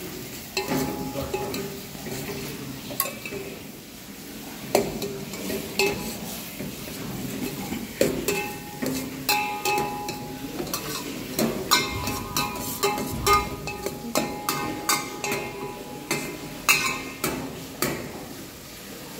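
A cooking utensil stirring and scraping a frying masala of roasted spices, onion and tomato in a pan. Frequent sharp clanks against the pan, mostly in the second half, each leave a short ringing tone.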